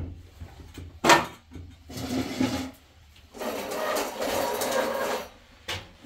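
Metal pots and utensils being handled: a sharp clank about a second in, the loudest sound, followed later by about two seconds of steady rough scraping or shuffling noise.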